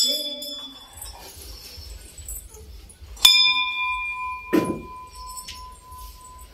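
Hindu temple bell struck twice, right at the start and again about three seconds in, each strike ringing on and fading slowly. A dull thump comes about a second after the second strike.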